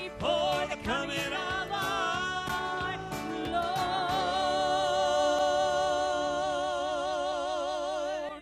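Southern gospel vocal trio of two men and a woman singing the close of a song, the voices sliding between notes and then, from about three and a half seconds in, holding the final chord with strong vibrato until it cuts off sharply at the end.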